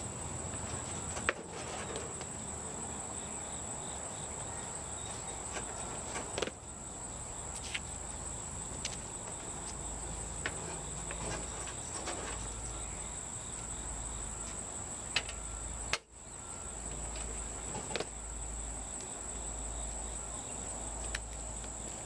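Steady high-pitched trill of crickets, with a few scattered sharp clicks and knocks.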